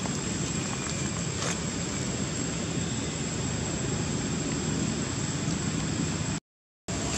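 Steady outdoor background noise: a constant low rumble with a thin, steady high whine over it. It cuts out completely for about half a second near the end.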